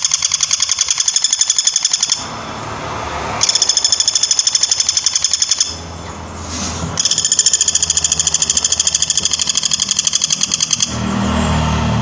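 Flameback woodpecker giving its loud rattling call, a fast run of evenly repeated high notes, in three long bursts with short breaks between them.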